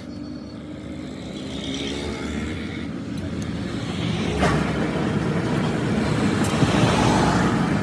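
A motor vehicle's engine rumbling and growing louder, with one sharp knock about four and a half seconds in.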